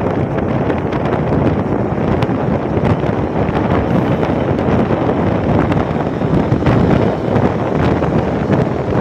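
Wind rushing over a phone microphone on a moving motorcycle, a loud, steady rumble of buffeting air with the bike's travel noise mixed in.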